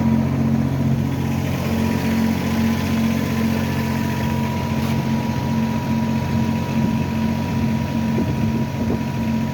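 An engine idling steadily, a constant low hum with a thin steady whine above it.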